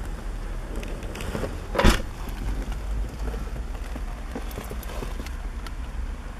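Honda D14A2 1.4-litre four-cylinder engine idling, heard as a steady low rumble inside the car's cabin. One sharp thump comes about two seconds in, and a few light clicks near the end.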